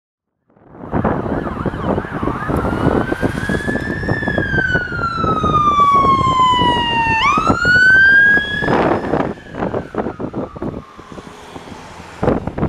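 Ambulance siren sounding a slow wail: the tone rises, slides slowly down over about three seconds, then sweeps up again. It is loudest as the ambulance passes and fades after about nine seconds. Wind buffets the microphone throughout.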